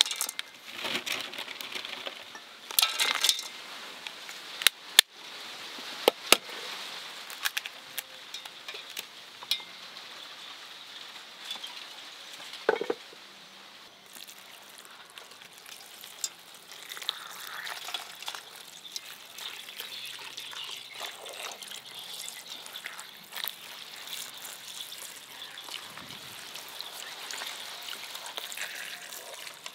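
Food frying in a pan with a steady sizzle, broken by scattered clinks and knocks of a utensil stirring, most of them in the first few seconds.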